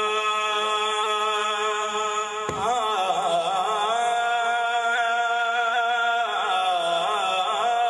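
A man chanting a naat in long, sustained sung notes. About two and a half seconds in, his pitch dips and wavers before he holds a note with a slight vibrato, then moves into melodic turns near the end.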